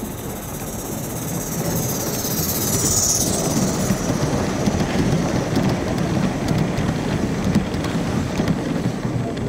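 Large-scale model train running past at track level: a high-pitched whine that swells and peaks about three seconds in as the locomotive goes by, then a steady rumble with clicking from the coaches' wheels running over the rails.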